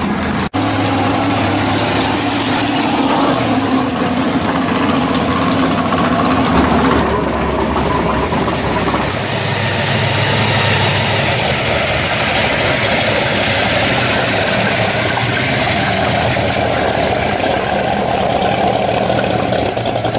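Supercharged V8 of a C2 Corvette Sting Ray with a blower through the hood, running steadily at low speed as the car rolls past.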